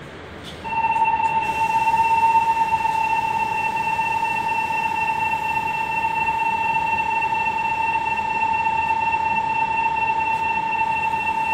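Station departure buzzer sounding one long, unbroken electronic tone that starts about a second in, the warning that the shinkansen at the platform is about to leave.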